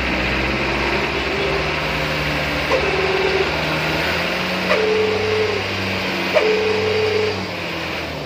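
A Mitsubishi truck engine runs steadily, heard at the exhaust pipe. Three short held tones, each opening with a click, come about three, five and six and a half seconds in. It gets a little quieter near the end.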